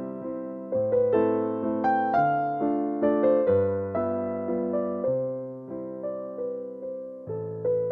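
Background music: a soft keyboard melody of piano-like notes that strike and fade one after another.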